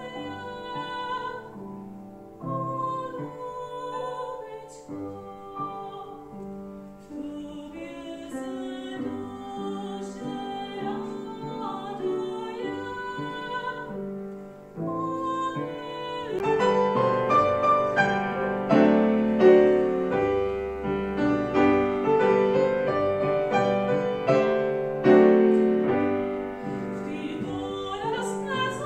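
A woman singing in a classical, operatic style with grand piano accompaniment. Voice and piano swell and grow louder a little past halfway.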